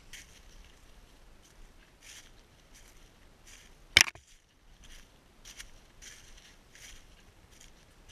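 Footsteps crunching and rustling through dry fallen leaves in irregular steps, with one sharp, loud knock about four seconds in.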